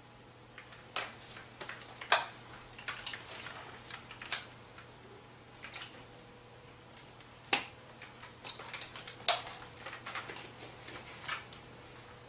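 Irregular sharp clicks and knocks, about fifteen spread over several seconds with gaps between them, the loudest about two seconds in and again near nine seconds.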